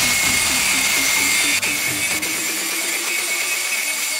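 Angle grinder with an abrasive disc grinding the rusted steel of an axe head: a steady high-pitched grinding hiss with a whine.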